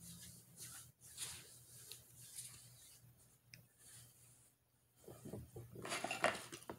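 Soft rustling of hands and hoodie sleeves. Near the end comes a louder scraping and clatter as a fork and knife are picked up off a paper plate.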